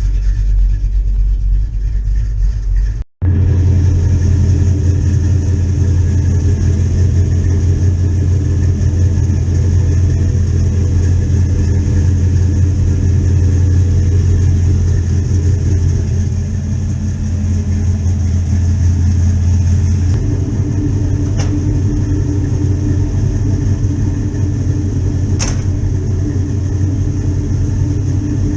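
A 1984 Chevy Silverado pickup's engine idling with a steady, deep rumble. The sound breaks off for an instant about three seconds in. Its low note shifts slightly about twenty seconds in, and there are two faint clicks after that.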